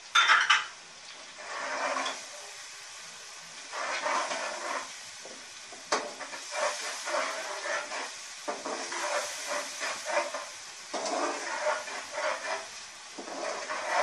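Ginger-garlic paste sizzling in hot oil with fried onions in an aluminium pot, stirred with a metal slotted spoon. The steady sizzle is broken by repeated louder bouts of stirring and scraping against the pot, with a sharp knock right at the start.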